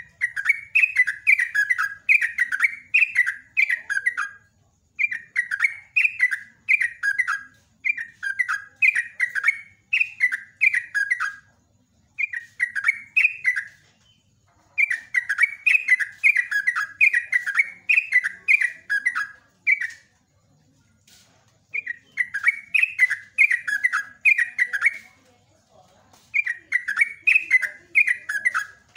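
Caged yellow-vented bulbul (trucuk) singing long runs of quick, chattering notes, each note dipping in pitch, in bouts of two to five seconds separated by short pauses.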